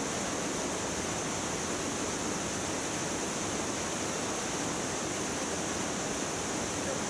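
Canyon waterfall pouring into a rock pool: a steady, even rush of falling water.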